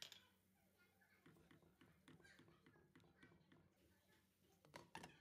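Near silence: faint room tone with a low steady hum and scattered faint clicks, two of them a little stronger near the end.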